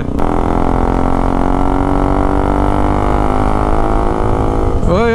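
KTM Duke 200's single-cylinder engine running through a loud aftermarket exhaust, held at steady revs so it gives one even, buzzing drone with a deep rumble underneath.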